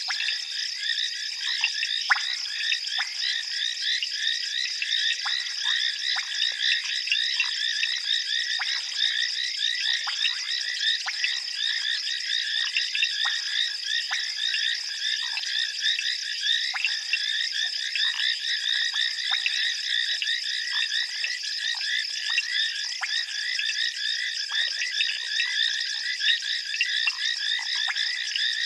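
Dense chorus of many frogs calling at once: countless short, high-pitched calls overlapping without a break.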